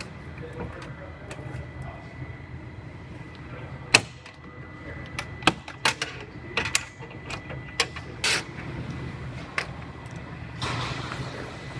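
Scattered sharp clicks and knocks of tools and body parts being handled while a car's front end is taken apart, over a steady low hum; the loudest knock comes about four seconds in, and a rushing noise sets in near the end.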